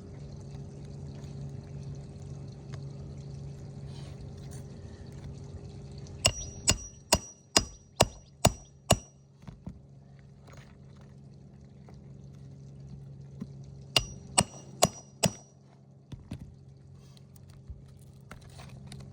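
Hammer driving a roofing nail into an asphalt shingle: seven quick ringing strikes, a pause, then four more. A steady low hum runs underneath.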